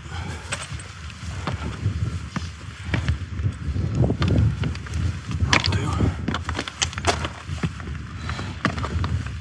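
Trekking-pole tips and boots clicking and scraping on rock in irregular sharp knocks, the loudest in the middle, over wind buffeting the microphone with a low rumble.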